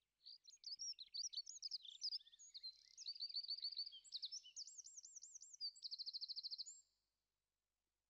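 Songbird singing: a varied, high-pitched twittering song with quick phrases and series of repeated notes. It ends in a fast, even trill and cuts off about seven seconds in.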